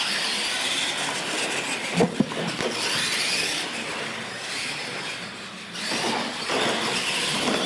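Two retro R/C monster trucks racing: motors whining as they rise and fall in pitch, with tyres running on the concrete floor. Two sharp knocks come about two seconds in.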